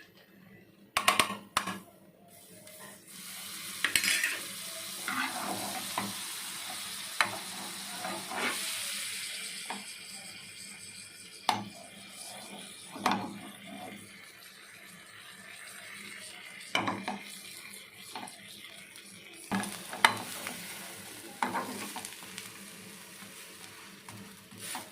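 A piece of egg bread frying in butter in a pan: a sizzle that swells a few seconds in and then eases off, with a spatula scraping and knocking against the pan now and then.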